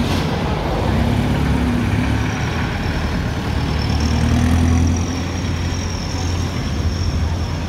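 Road traffic passing close by: a jeepney and then a van drive past, engines running over a steady low hum, loudest about four seconds in.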